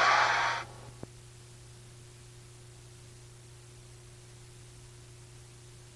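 Audience applause that cuts off abruptly under a second in, followed by a single click and then only faint tape hiss with a steady low hum.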